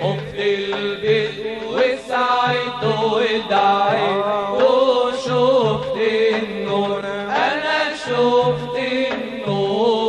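A male munshid singing a wordless melismatic passage of Islamic devotional chant (inshad), his voice gliding up and down through long ornamented notes over a low steady drone.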